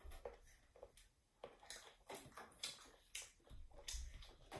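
Faint chewing of crisp green mango slices: soft crunches and mouth clicks, irregularly spaced about half a second to a second apart.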